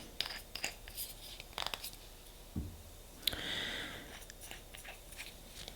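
Faint clicks, taps and a short rustle of small objects being handled and set down, likely nail-stamping plates and polish bottles.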